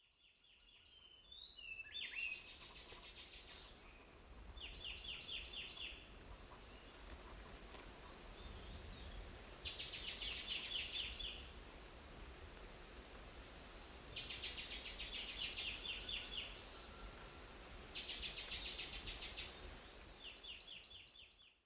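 Forest ambience with about six bouts of a rapid, high, pulsing trill, each a second or two long and a few seconds apart, from birds or insects in the forest. A few short chirps come near the start, over a faint low rumble.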